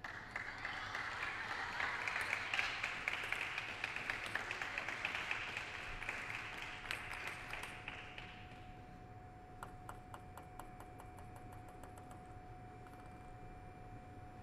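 Applause in the hall for about eight seconds, dying away. Then a table tennis ball is bounced on the table in a quick run of evenly spaced taps before a serve, over a faint steady tone.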